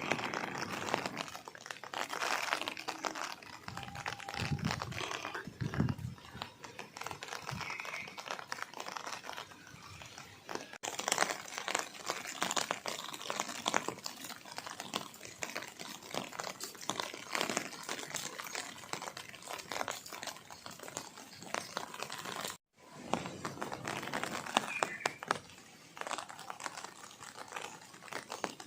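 Rain falling, a dense crackle of many individual drops hitting surfaces. It cuts out for a split second about 23 seconds in.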